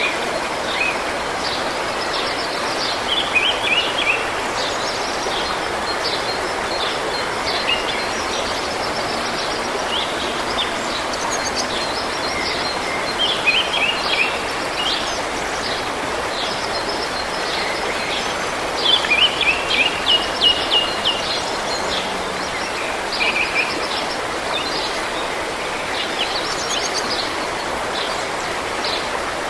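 A stream running steadily, with songbirds singing over it in short bursts of quick, high chirps and trills, busiest about two-thirds of the way in.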